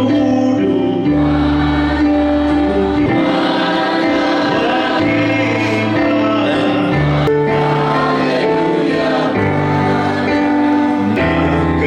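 Gospel music: a choir singing, over held bass notes that change every second or two.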